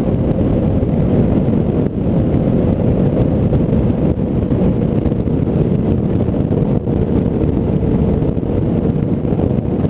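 Small fishing boat's outboard motor running steadily at speed, with heavy wind rush on the microphone over a faint steady hum.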